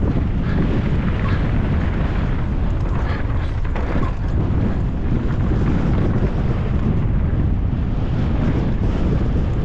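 Wind buffeting the camera microphone on a downhill mountain bike at speed, with the tyres rumbling over the dirt trail and a few faint knocks and rattles from the bike.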